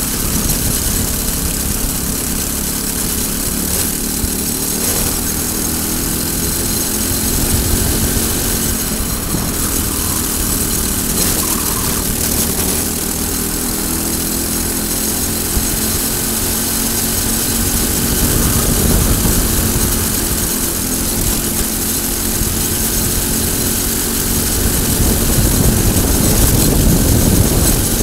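Briggs & Stratton single-cylinder four-stroke kart engine at racing speed, heard onboard, its pitch rising and falling as the throttle is opened out of corners and eased into them. It runs louder and higher near the end as the revs climb.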